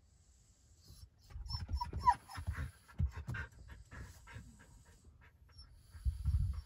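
A French bulldog panting in short uneven runs of breaths, with a second burst of panting near the end.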